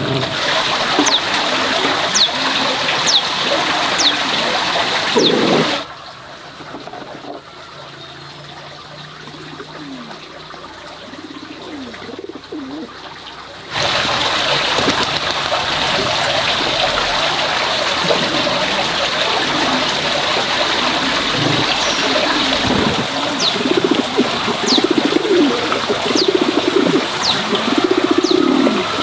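Water running or trickling steadily, with birds calling over it. The sound drops to a much quieter stretch from about six seconds in, then comes back at full level about eight seconds later.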